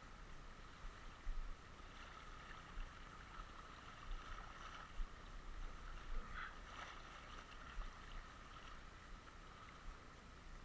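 Fast, shallow river current washing steadily around a wading angler, faint, with a few short louder splashes.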